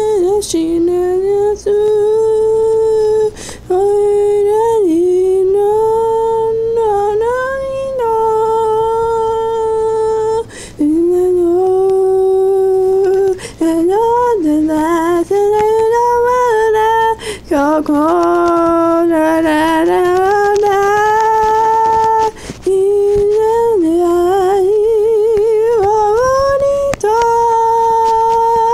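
A single high female voice singing a slow melody, holding long notes with vibrato and a fast wavering ornament in places. The phrases last a few seconds each, with short breaths between them.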